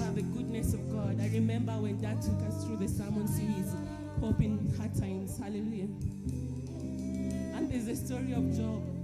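Live gospel worship music: sustained instrumental chords over a low bass line, with a voice singing over them.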